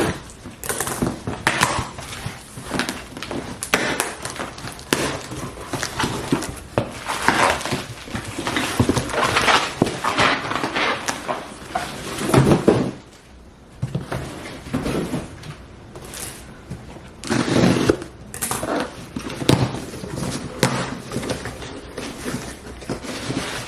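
Rustling and tearing of packaging with scattered knocks and scrapes as a shipping box is opened and its contents are handled. There is a short lull about thirteen seconds in.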